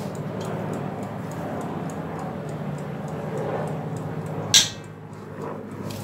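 Soft handling sounds of sticky cookie dough being pinched into small pieces and set on a parchment-lined baking tray, over a low steady hum. There is one sharp click about four and a half seconds in.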